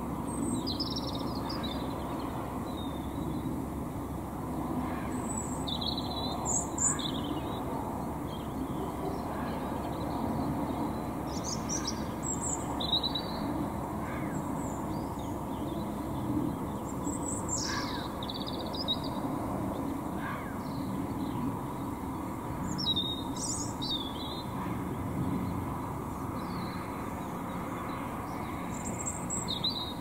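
Songbird singing in short, high-pitched phrases every few seconds before dawn, over a steady low rumble of distant suburban traffic.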